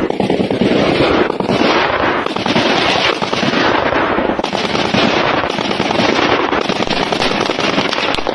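Sustained small-arms gunfire: a dense, loud stream of rapid overlapping shots with no letup.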